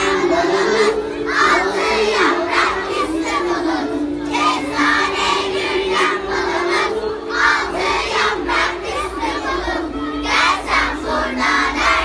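A large group of young children singing loudly together, with a recorded music track playing beneath.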